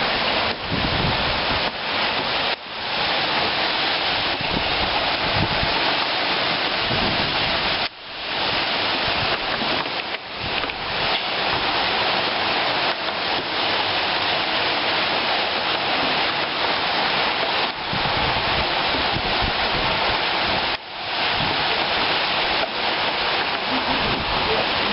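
Torrential rain pouring down in a storm, with strong gusting wind buffeting the microphone as low rumbles. The sound dips abruptly for a moment a few times.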